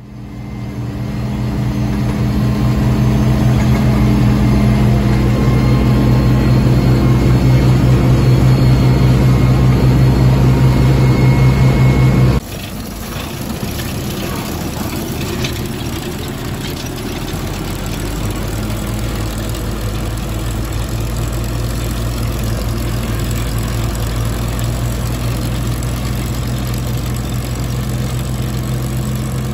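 Tractor engine running steadily under load, a droning hum. About 12 seconds in the sound changes abruptly to a rougher, noisier engine sound.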